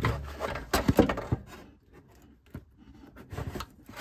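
Washer fluid reservoir and its bracket knocking and rubbing against the inner fender as they are worked into place. There are a handful of clacks in the first second and a half and more near the end, with a quiet spell between.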